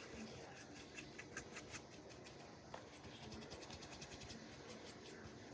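Faint, quick scratching strokes, coming in runs: a makeup brush working bronzer onto slime.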